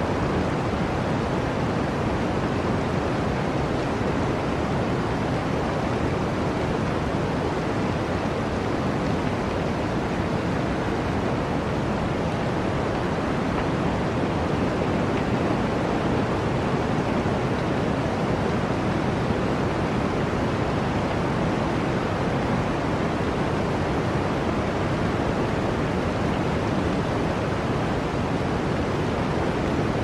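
Blizzard wind blowing through a forest: an even, unbroken rushing noise with no single gust standing out.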